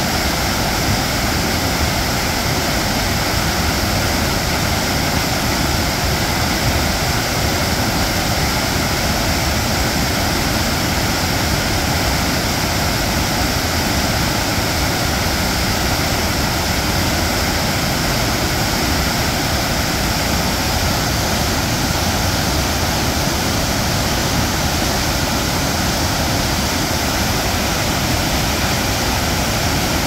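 Flood-swollen mountain stream rushing over boulders: a loud, steady roar of white water with no let-up.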